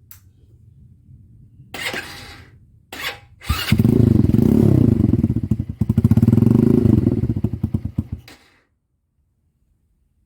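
Carbureted motorcycle engine exhausting through a Venom X22 aftermarket slip-on muffler. It runs low at first with a couple of short blips, then is revved hard twice for a few seconds each, the pitch rising and falling. The sound cuts off suddenly near the end.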